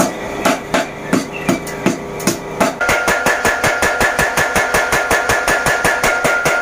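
Hot steel being forged. A hand hammer strikes it on an anvil at about three blows a second. About three seconds in, a motor-driven mechanical power hammer takes over, striking much faster, about six blows a second, with a steady high tone running under the blows.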